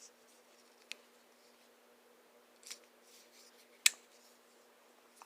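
Benchmade Aileron 737 folding pocket knife being worked in the hand: a faint click about a second in, a soft scrape near the middle, and one sharp, loud click just before four seconds in as the blade is moved.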